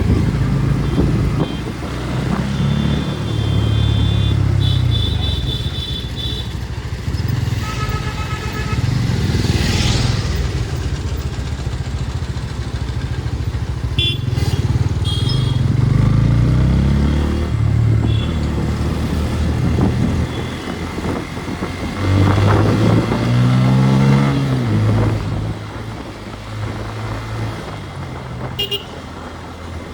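Motorcycle engine running under way, its pitch rising and falling with throttle and gear changes, over wind and road noise. Short vehicle horn toots sound a few times in the first half.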